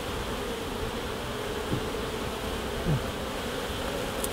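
Honeybees buzzing in a steady hum over an open hive. Twice a single bee passes close, its buzz briefly dropping in pitch.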